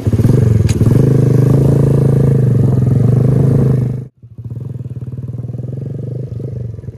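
Cimatti Bulk motorcycle engine running at a steady speed, loud for about four seconds, then breaking off abruptly and coming back quieter and still steady.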